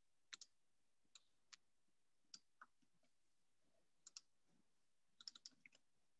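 Faint computer keyboard keystrokes: scattered single clicks, with a quick run of several about five seconds in.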